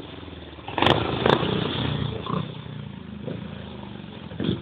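Motorcycle engines running, recorded on a mobile phone, with a steady low engine note. The engines get louder about a second in, starting with two sharp clicks, then ease back.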